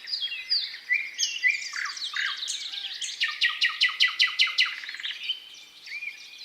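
Thrush nightingale singing: a string of varied whistles and chirps, then a loud, rapid series of clicking notes, about eight a second, from about three seconds in, ending in a faster rattle before the song drops back to softer phrases.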